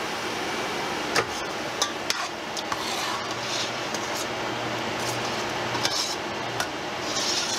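A spoon stirring meat sauce in a pan on the stove, with scattered sharp clinks of the utensil against the pan and a few short scraping swishes.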